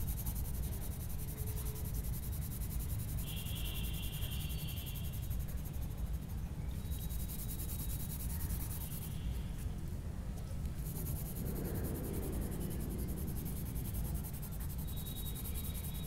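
Coloured pencil shading back and forth on sketchbook paper, a faint scratching, over a steady low background rumble.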